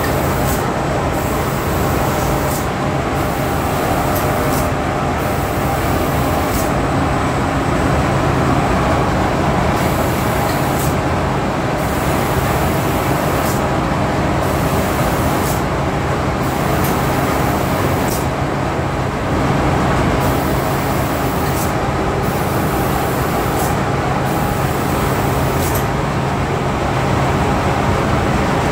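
An automatic robot spray gun hissing as it sprays, switching on and off every second or two with a click at many of the switches, over the steady drone and low hum of the spray booth's machinery.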